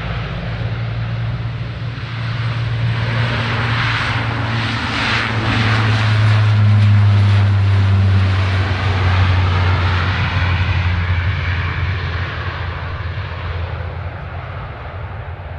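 Aircraft engines passing close by: the sound builds to a peak about halfway through, then fades away, with a steady low hum under it.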